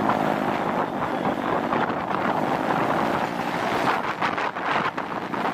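Wind rushing over the microphone while riding a moving motorcycle, with the motorcycle's engine running steadily underneath.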